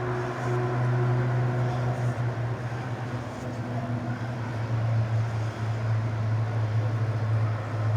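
Steady low mechanical hum, like a motor or engine running, with a rough noisy hiss over it.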